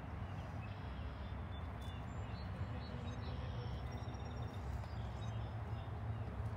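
Steady low outdoor rumble with a few faint high bird chirps.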